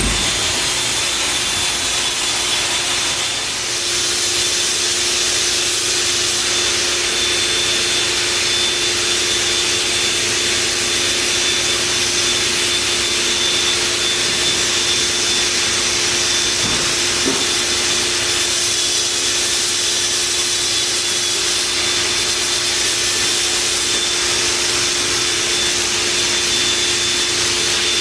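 Multicam 3000 Series CNC router running: a steady machine hiss with a steady whining tone that comes in a few seconds in and holds.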